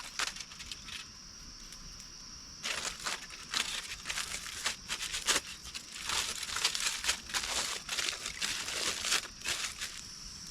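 Irregular crinkling and rustling from things being handled, in short crackly bursts, over a steady high-pitched insect drone.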